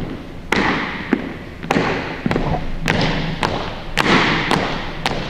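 Marching footsteps of a color guard team in step on a hardwood gym floor. Hard-soled shoes strike in a steady cadence, about two steps a second, each step echoing briefly off the hall.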